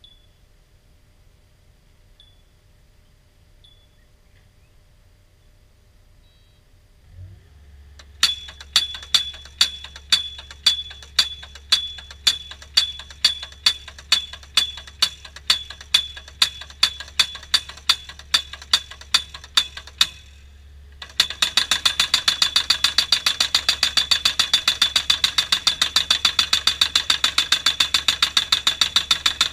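Excavator-mounted hydraulic fence post thumper driving a steel fence post, steel ringing on steel. After a low hum comes in, the strikes start at about two a second. After a short pause they give way to much faster, louder hammering.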